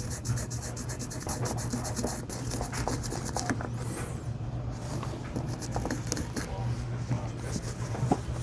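Small piece of 120-grit sandpaper wrapped around an eraser, rubbed in quick back-and-forth strokes on a circuit board, sanding lightly through the green solder mask over a burnt trace. The strokes come in runs with a short break about halfway, over a steady low hum.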